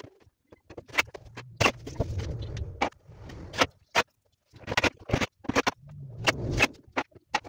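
Sharp clicks, taps and knocks of hands and tools working on a plywood wardrobe door and its hinges, coming irregularly, with a low hum twice, the second ending abruptly near the end.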